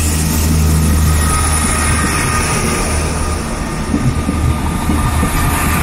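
South Western Railway Class 158 and 159 diesel multiple units running past close by: a steady low diesel drone with wheel and rail noise and a faint thin whine above it. A few short knocks come about four seconds in.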